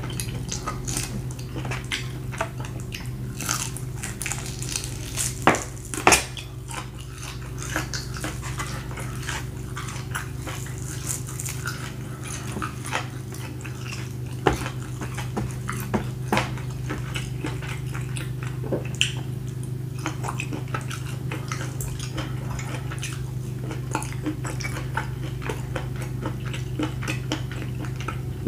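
Someone chewing and gnawing meat off a grilled beef rib: many small mouth clicks and smacks, with a few louder ones about five and six seconds in, over a steady low hum.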